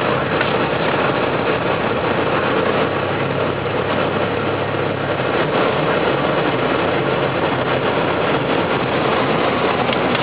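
Pickup truck driving through snow: the engine runs steadily under a constant rush of tyre and road noise.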